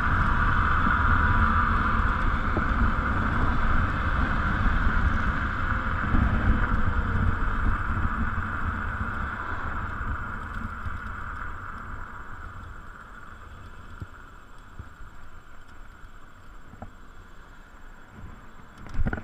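Electric scooter riding on the road: wind rushing over the microphone with a steady higher hum. The sound fades over the second half as the scooter slows, and there is a short knock near the end.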